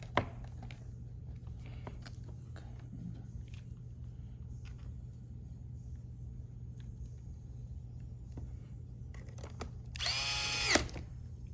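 A small electric screwdriver spins briefly near the end, under a second, its whine rising and then falling. Before it come a sharp click just after the start and a few light clicks of laptop parts being handled, over a steady low hum.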